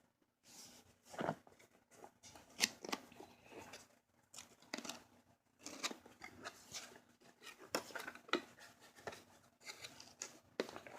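A cardboard product box being opened and its packaging handled: irregular short scrapes, clicks and rustles of cardboard and wrapping.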